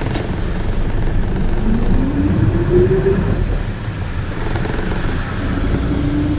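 Bus engine running with a steady low rumble. Its pitch rises for about a second and a half as the bus speeds up, then it holds a steady tone near the end.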